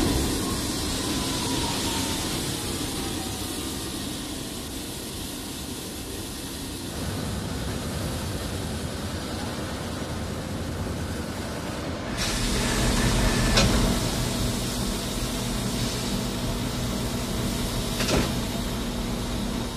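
Loud, steady machinery noise with a hiss, changing abruptly about twelve seconds in to a deeper, steady hum, with a couple of short knocks after that.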